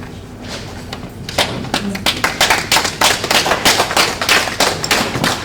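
Applause from a small group: many quick hand claps start about a second and a half in and keep going until near the end.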